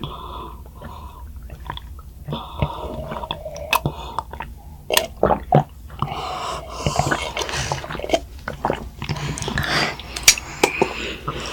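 Young children gulping and swallowing drinks from plastic cups, an irregular string of wet gulps and clicks.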